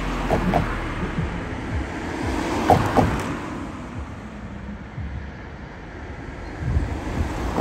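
Road traffic passing steadily, with a few short clunks about half a second and about three seconds in, the loudest near three seconds.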